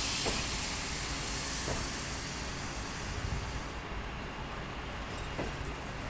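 Passenger coaches of an arriving train rolling slowly past, with a steady high air-brake hiss that stops about four seconds in. There is a low rumble throughout and a few faint knocks of wheels crossing rail joints.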